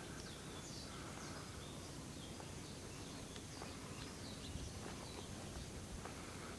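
Birds chirping, many short high chirps and quick pitch glides, over a faint steady outdoor background.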